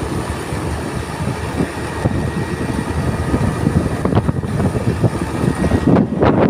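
Large excavator's engine running steadily with a low rumble, with wind gusting on the microphone near the end.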